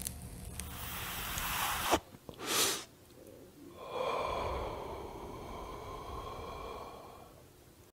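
Breathy whoosh sound effects: a hissing rush builds for about two seconds, a short swoosh follows, then a longer rush with a faint ringing tone fades away near the end.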